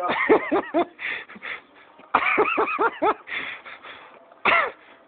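Short bursts from a person's voice, not words, each rising and falling in pitch: a quick run in the first second, another about two seconds in, and a single burst near the end.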